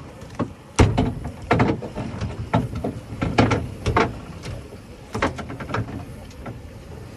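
A run of irregular knocks and clunks, the loudest about a second in, over a steady low background noise.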